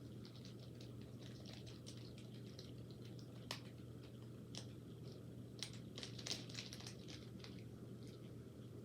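Soft scattered clicks and rustles of small silicone and plastic fidget toys being handled and packed together, with a few sharper clicks in the middle.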